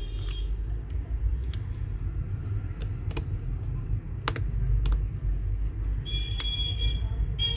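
Small sharp plastic-and-metal clicks, about a dozen spread irregularly, as a phone's flex-cable connectors are pressed and snapped onto the motherboard, over a steady low hum. Near the end a thin high-pitched tone sounds twice.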